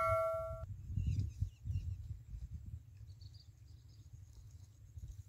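The ringing tail of a bell-like ding sound effect, from a subscribe-button animation, cuts off about two-thirds of a second in. After it comes a quiet outdoor background: a low rumble with a few faint bird chirps.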